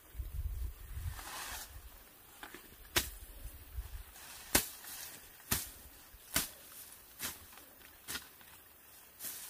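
Machete slashing through grass and brush: about seven sharp cuts, roughly one a second, starting about three seconds in, after a short rustle of vegetation.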